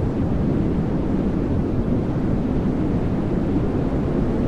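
Old-film sound effect: a steady, dense, low crackling rumble like a worn film reel.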